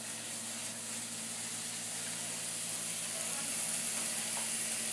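Burger patty sizzling in a hot, unoiled double-sided pan on a gas burner. A steady frying hiss that grows slightly louder.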